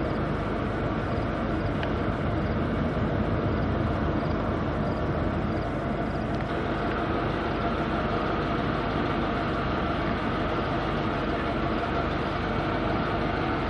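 Steady car engine and road noise heard from inside the cabin, an even rumble that stays level throughout.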